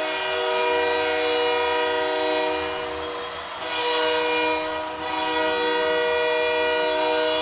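Hockey arena goal horn sounding a goal: a long held multi-tone horn chord that eases off briefly twice and comes back.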